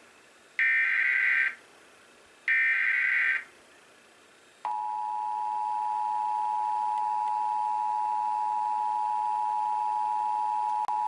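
Emergency Alert System SAME header: the last two of three one-second bursts of warbling digital data tones. About four and a half seconds in, the steady two-tone EAS attention signal (853 and 960 Hz together) starts and sounds continuously.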